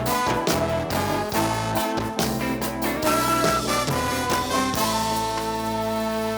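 Music with a steady beat of punchy hits, giving way to long held chords about five seconds in.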